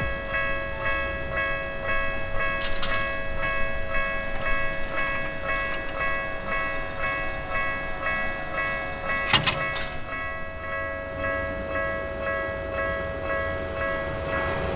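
Japanese level-crossing warning bell ringing in an even, repeating beat, the signal that a train is approaching. A brief sharp clatter cuts through it about nine seconds in.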